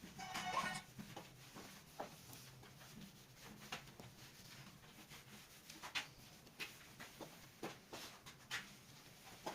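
Faint, irregular light taps and scraping, with a short high-pitched squeak just under a second in.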